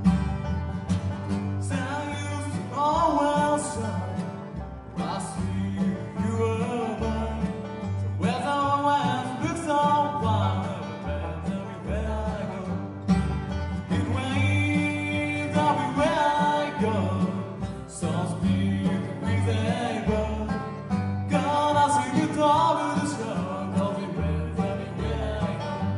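Acoustic bluegrass band playing live: banjo, mandolin, acoustic guitar and upright bass, with a voice singing the melody in phrases over the steady accompaniment.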